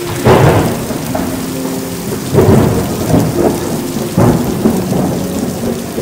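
Heavy rain pouring down with thunder rumbling, swelling in several loud surges.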